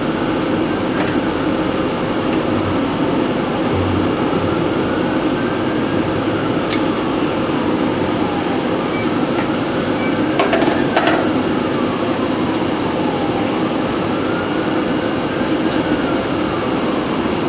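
A loud, steady mechanical drone with a faint whine sliding slowly up and down every few seconds, and a few short clicks from tools on metal, the sharpest cluster about ten and a half seconds in.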